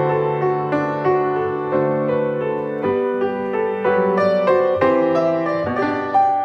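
Solo piano playing a slow, gentle piece, with new notes and chords struck about once a second and left to ring.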